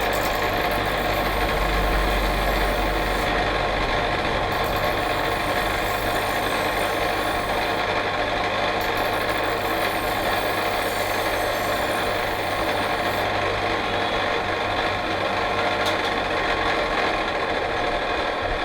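A machine motor running steadily, with a hum of several steady tones. The high hiss drops out briefly twice and fades in the last few seconds.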